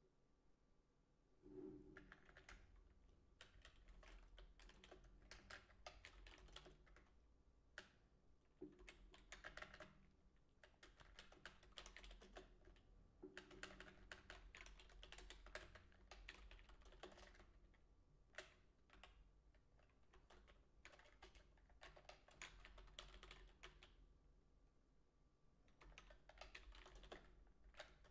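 Faint typing on a computer keyboard: quick runs of key clicks in bursts, broken by short pauses.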